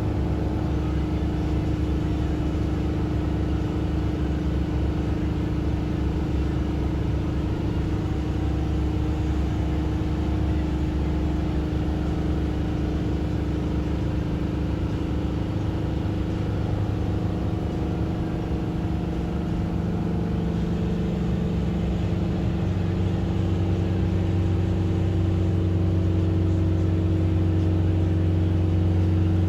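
Steady engine and road noise heard from inside a moving vehicle, a low hum with a constant engine note. The engine note strengthens slightly over the last few seconds.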